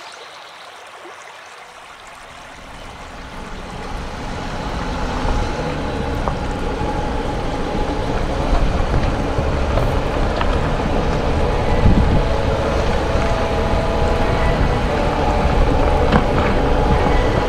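A Mercedes Sprinter 4x4 and a VW T5 4x4 camper van driving slowly along a rough stony track, engine and tyre rumble growing louder after about two seconds, with occasional crunches of stones. A mountain stream trickles underneath.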